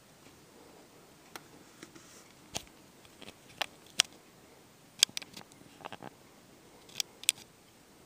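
About a dozen sharp clicks and taps at irregular intervals, several close together around the middle, over a faint steady hiss.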